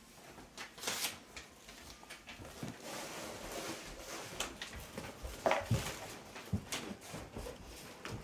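Scattered rustling, shuffling and small knocks from people moving and handling things in a room, with a few sharper clicks and knocks in the second half.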